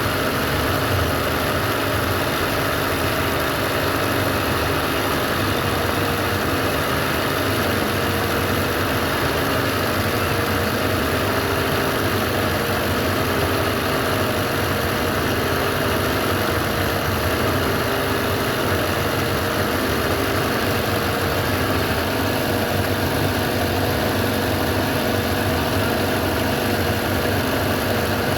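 Sewing machine running steadily, stitching without a pause.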